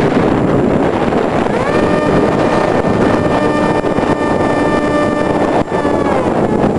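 Heavy wind rushing over the microphone of an EasyStar RC plane in flight. About a second and a half in, the plane's electric motor and propeller whine rises in pitch, holds steady, then winds down near the end.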